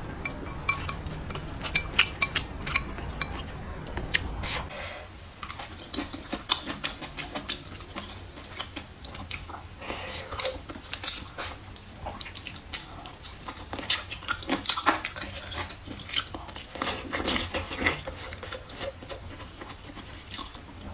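A person eating close to the microphone: wet chewing and biting, with chopsticks clicking against a ceramic bowl. It comes as many small irregular clicks and crackles.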